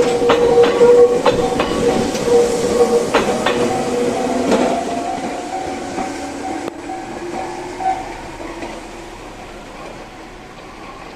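An electric commuter train runs over a level crossing, its wheels clacking over the rail joints, then fades as it moves away. A Japanese level-crossing warning bell rings in a steady pulse and stops about eight seconds in.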